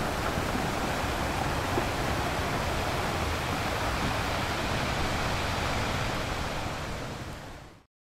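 Ocean surf breaking on a beach: a steady rush of waves that fades out near the end.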